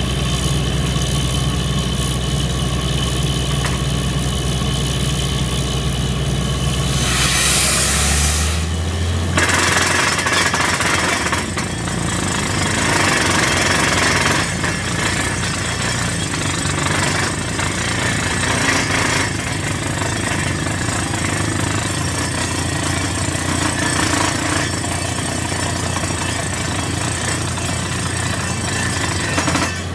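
Borewell drilling rig: its engine runs steadily, then about seven seconds in a blast of compressed air hisses and the engine note rises as the air hammer starts drilling. From then on the hammer rattles rapidly while air blows rock cuttings and dust out of the hole.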